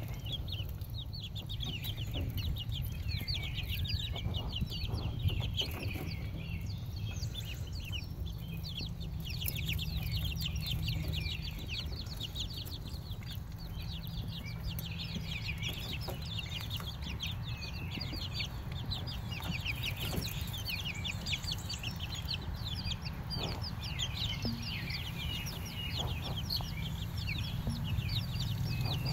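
Young chicks and Call ducklings peeping constantly, many short high peeps overlapping, over a steady low rumble.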